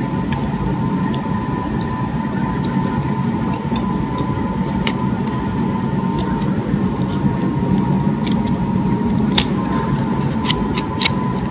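Steady mechanical hum with a thin whine running through it, the sound of a fan or machine running. Small, scattered clicks over it, more of them near the end, from fingers working the pins and keeper of a plastic transmission wiring connector.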